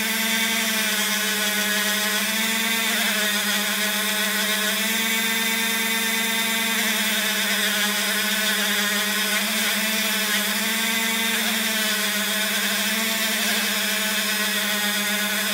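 Dremel rotary tool running steadily at high speed with a cloth polishing mop, buffing a silver ring with red rouge polishing compound. It gives an even motor whine that wavers slightly in pitch.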